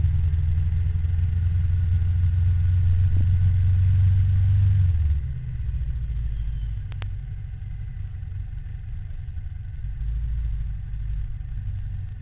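Low rumble of vehicle and road noise while riding, loud at first and dropping abruptly about five seconds in, with one sharp click a couple of seconds later.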